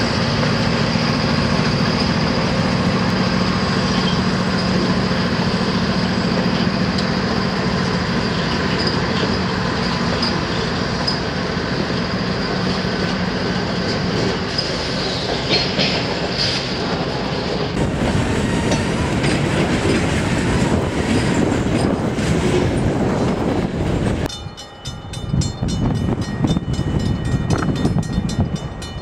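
Diesel-hauled freight train passing a grade crossing close by: the locomotives' engines hum low and steady, then the freight cars' wheels click and rumble over the rail joints. About 24 seconds in, the sound changes to a quieter crossing with an evenly repeating ringing.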